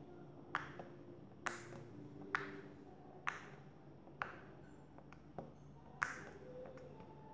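Soft shaving-foam slime being pressed and poked with fingertips, giving a sharp little pop or click about once a second, seven in all.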